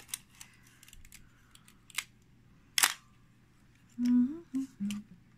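Pentax KX 35 mm film SLR being operated by hand: a series of sharp mechanical clicks from its controls, the loudest nearly three seconds in.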